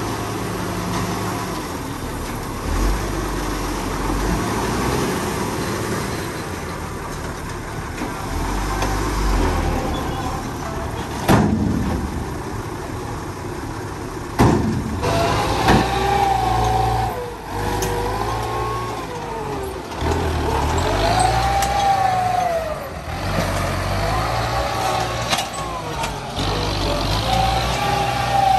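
Diesel engine of a dump truck running while its tipper bed empties a load of soil, with two sharp bangs around the middle. In the second half an engine revs up and down repeatedly as heavy machinery works the dumped soil.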